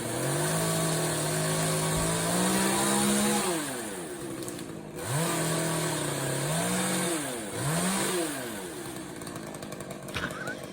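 Chainsaw revved up and held at high speed three times: about three seconds, then about two, then a short blip near eight seconds, dropping back to idle in between.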